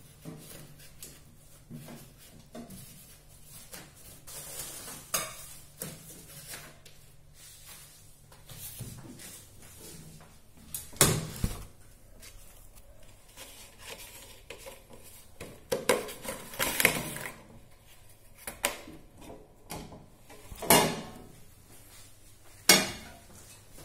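Handling noise from unpacking a single-pan balance: cardboard packing and twine rustling as they are pulled off, with scattered clicks and several louder knocks and clatters as the balance's casing and cover are handled, mostly in the second half.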